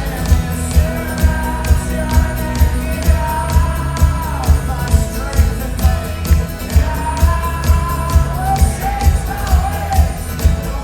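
Loud live folk-rock band playing over a steady kick-drum beat, with a held, sliding melody line above it.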